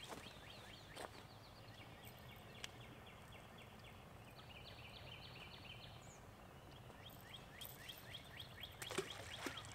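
Faint birdsong of rapidly repeated short chirps, with a couple of soft clicks near the end.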